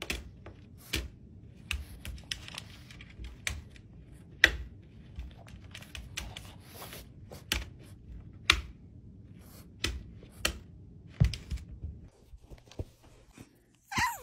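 French bulldog pawing at a ball on a wooden tabletop: irregular taps and claw clicks on the wood, about one every second.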